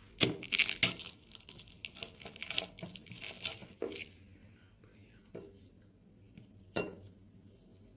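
Metal fork pressing and cutting through crisp, flaky walnut-filled ay baklava: crackling and crunching of the pastry for about four seconds, then a few faint clicks and one sharp clink of the fork against the china plate near the end.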